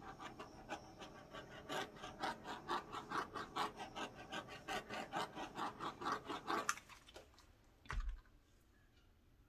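Electric heat gun blowing hot air over wet acrylic paint to pop bubbles. Its rush of air pulses about four times a second, then cuts off about two-thirds of the way through. A single low thump follows near the end.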